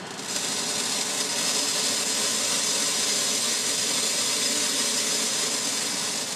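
Dense, steady hiss of rapid counts from a proportional counter tube picking up x-rays given off by a large transmitting tube with about 10 kV on its anode. It swells just after the start and then holds level.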